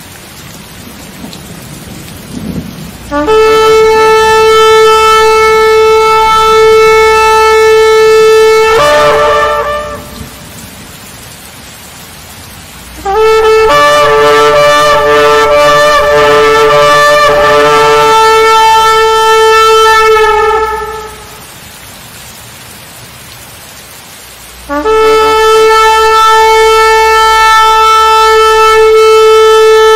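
Shofar (ram's horn) blown in three long single-note blasts, each lasting several seconds. The first jumps up in pitch just before it ends, the second wavers and breaks through its first half, and the third starts near the end. A steady rushing noise fills the gaps between blasts.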